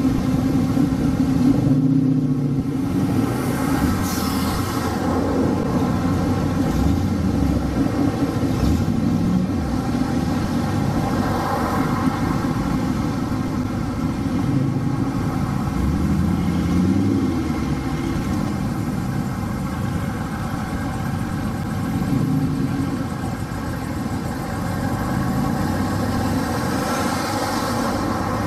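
Ford Capris and other cars in a queue with their engines running, the engine notes rising and falling several times as cars pull away.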